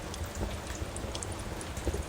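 Steady rain, sprinkled with the sharp crackles and pops of a wood fire burning in a fireplace.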